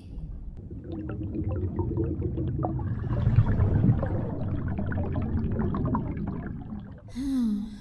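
Added rushing sound effect with small crackles through it, swelling to its loudest about three and a half seconds in and fading out by about seven seconds. A brief murmur in a woman's voice comes near the end.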